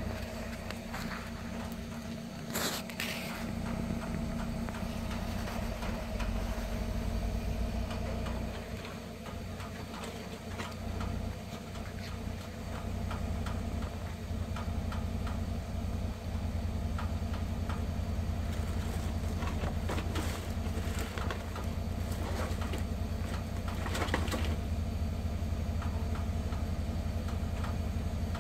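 Cat nosing into a plastic bag and cardboard box, giving scattered brief crinkles and rustles, over a steady low hum.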